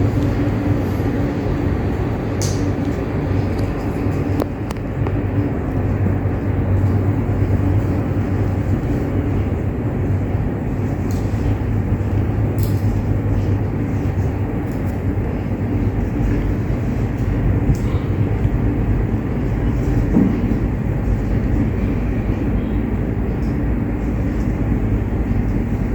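Steady rumbling noise with a faint low hum, broken by a few faint clicks.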